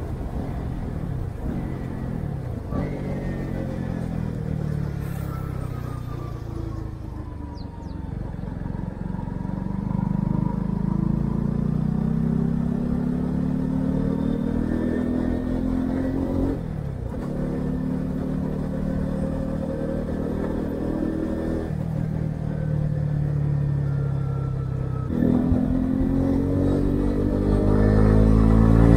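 Stock exhaust of a Honda CB125R's single-cylinder four-stroke engine, recorded from the rider's chest. The engine winds down as the bike slows, with a downshift about three seconds in, then pulls up through the gears, with upshifts about 17, 22 and 25 seconds in.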